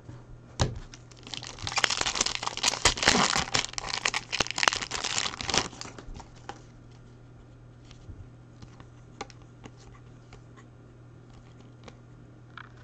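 Foil wrapper of a Topps Chrome jumbo trading-card pack being torn open and crinkled, dense crackling for about four seconds. It then gives way to faint scattered clicks as the cards are handled.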